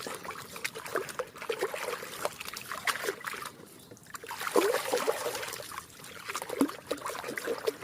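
Water trickling and splashing as a muddy toy is washed, with many small irregular splashes and a short lull partway through.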